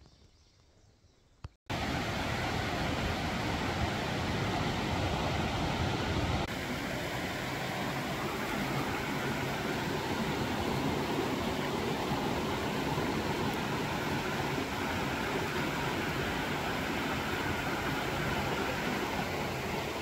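Near silence, then after a click about a second and a half in, a steady rushing of running water starts abruptly, even from low to high pitch, dropping slightly in level about six seconds in.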